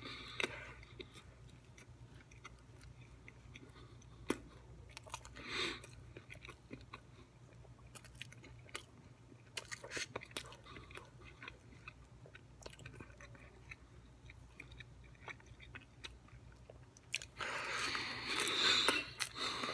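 Person eating a slice of pizza close to the microphone: quiet chewing with scattered small mouth clicks, then a louder bite and chewing of the slice near the end.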